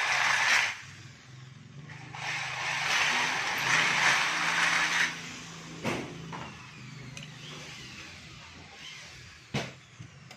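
Hand-operated lock on an aluminium screen door being worked to test it: sharp clicks of the lock mechanism about six seconds in and again near the end. These follow two stretches of loud rushing hiss a few seconds long.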